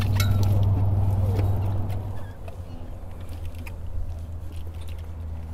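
Outboard motor idling with a steady low hum that drops in level about two seconds in, with light scattered patters and rustles as a muddy cast net is shaken out over the boat.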